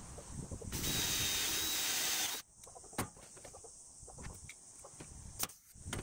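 Cordless drill running for about a second and a half with a steady whine, boring through aluminium sheet, then stopping abruptly. Two sharp clicks follow.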